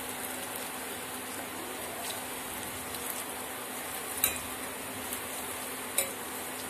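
Urad-dal fritters sizzling steadily in hot oil in a steel kadai, being turned with a slotted spoon that clinks lightly against the pan twice, about four seconds in and again near the end.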